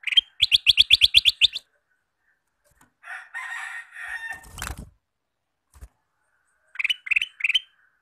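Ruby-throated bulbul (kutilang emas) singing in a cage: a fast run of about ten clear notes, then a scratchier chattering phrase ending in a thump as the bird flutters about in the cage, and three quick notes near the end.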